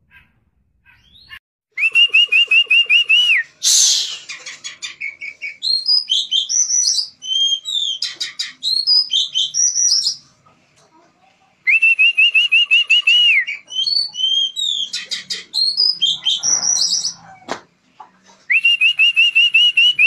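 Oriental magpie-robin (kacer) singing loudly and continuously. It repeats a fast row of even notes at one pitch that ends in a downward slur three times, with varied whistled phrases in between. A brief rush of noise comes about four seconds in.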